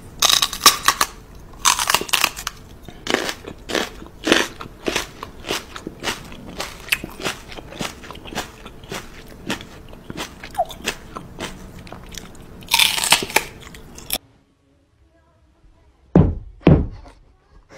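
Fast, irregular crunching and munching sounds, like biting into something crisp, with music underneath; they cut off abruptly about fourteen seconds in. Near the end come two dull thumps.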